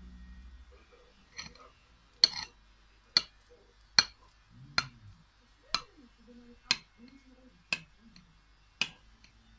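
Kitchen knife cutting a cake on a ceramic plate, giving a sharp click about once a second, slightly unevenly spaced, from about a second in.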